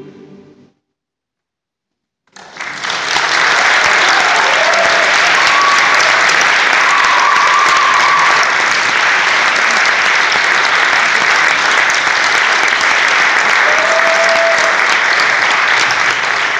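The final held chord of a choir with double bass and plucked strings fades out, and after a moment of silence the audience breaks into loud, steady applause about two seconds in, with a few cheers.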